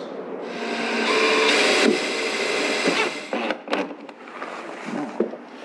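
DeWalt cordless driver running for about three seconds, driving a screw through an MDF template into the boat's fiberglass. A few short sharp clicks follow.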